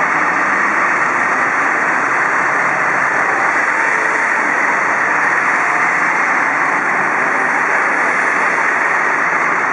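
Steady noise of idling fire engines and road traffic passing on a city street, with no sirens or horns.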